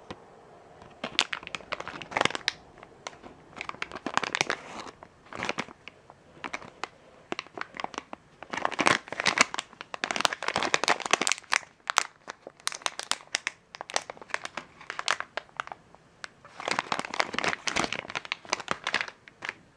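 Plastic LEGO minifigure blind bag crinkling as it is handled and squeezed between the fingertips, in irregular spells with short pauses.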